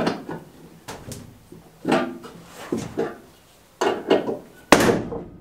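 Irregular sharp metallic clanks and knocks as a car jack and its steel handle are set and worked under a heavy metal lathe, about one or two a second, the loudest near the end before the sound cuts off suddenly.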